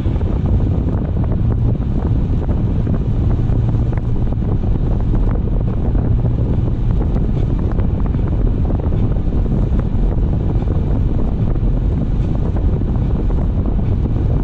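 Steady wind and road noise of a car driving, a low even rush without breaks.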